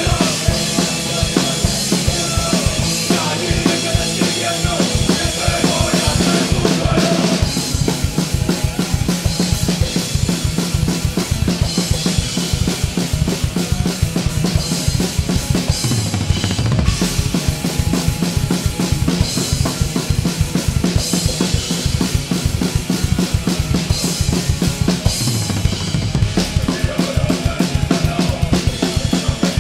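Live rock band dominated by a close-miked drum kit: bass drum, snare and cymbals played hard over the band. About seven seconds in, the bass drum settles into a fast, even run of strokes.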